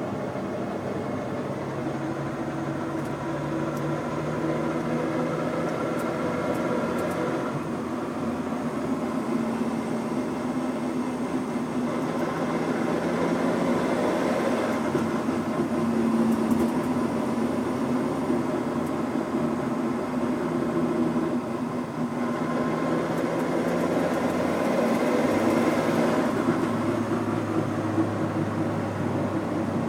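Mitsubishi Eclipse GSX's turbocharged four-cylinder engine running under acceleration, its pitch shifting several times, with a slight grinding noise that comes in on acceleration.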